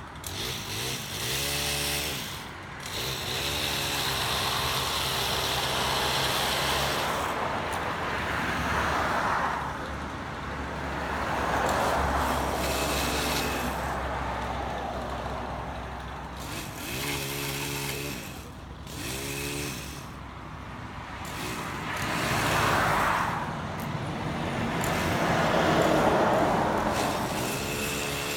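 Motor vehicles running and passing, with a steady low engine rumble and noise that swells and fades several times as they go by.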